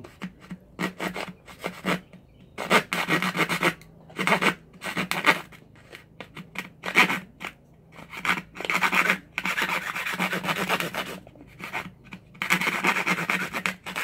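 Narrow-bladed hand saw rasping through the hard, dry shell of an apple gourd in quick short strokes, coming in about six bursts of a second or so with brief pauses between.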